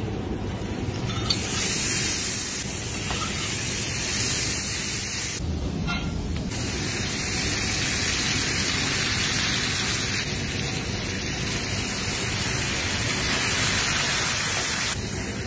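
Cubes of shish kebab meat sizzling in bubbling fat on a hot serving platter, a steady hiss that thins briefly about six seconds in.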